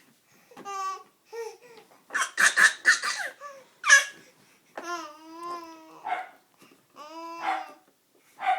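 A baby laughing, squealing and babbling in a string of short high-pitched bursts, with a run of quick laugh pulses a couple of seconds in and a longer, wavering squeal around the middle.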